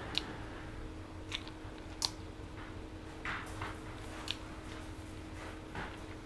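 A small camera being handled while its owner tries to reset it after it has stopped working: a few scattered sharp plastic clicks and taps from its buttons and casing, over a steady low hum.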